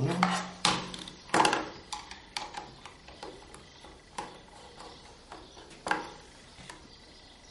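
Metal hand tape-binding tool and screwdriver clicking and knocking against a tabletop as the screws holding the tool's head are taken out. Irregular sharp knocks, several in the first two seconds, then sparser single clicks.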